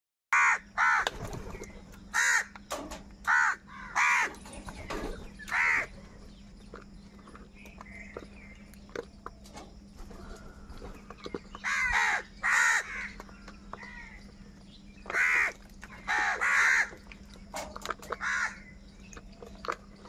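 A flock of house crows cawing: harsh, loud caws singly and in quick pairs at irregular gaps, busiest in the first few seconds and again in the last third. A faint steady low hum runs beneath.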